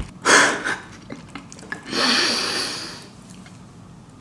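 A person's breath through the nose or mouth: a short puff of air, then a longer hissing exhale that fades away.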